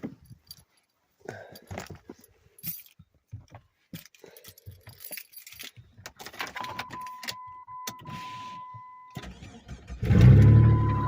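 Keys jangling and clicking, then a steady electronic chime tone from the Jeep Grand Cherokee's dash. About ten seconds in, its engine cranks and fires on a cold start in the snow, then runs steadily at a fast idle, with the chime tone still audible.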